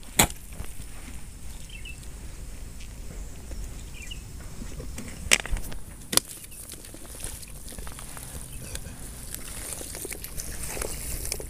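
Bare hands digging and scooping through wet mud at an eel burrow, with a few sharp slaps or clicks, the loudest two about five and six seconds in.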